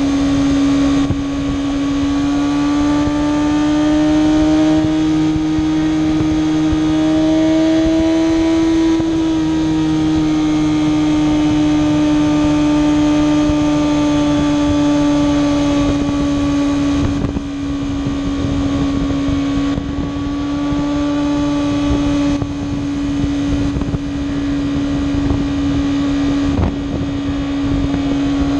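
Kawasaki ZX-6R's inline-four engine pulling at a steady highway cruise, its pitch rising gently and then easing back a little before holding steady, over a rush of wind noise.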